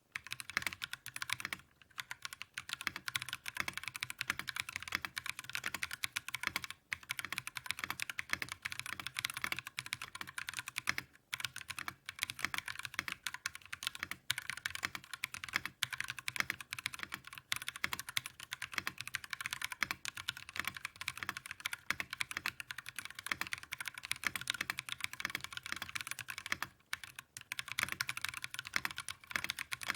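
Fast typing on a mechanical keyboard with Drop Invyr Holy Panda tactile switches in an aluminium case and plate: a dense run of clacky keystrokes, broken by a few short pauses.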